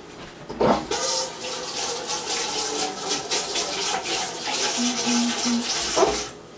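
Kitchen tap water running over raw chicken breasts as they are rinsed in the sink. It comes on suddenly about half a second in and is shut off just before the end.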